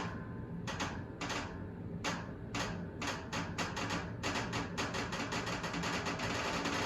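Dishwasher running: a low motor hum under a run of clicks that start a few at a time and come faster and faster until they merge into a steady rattle.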